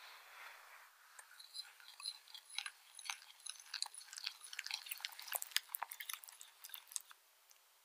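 Wire balloon whisk stirring flour into a thin batter in a glass bowl: quick, irregular clicks and taps of the wires against the glass with a wet mixing sound, stopping about seven seconds in.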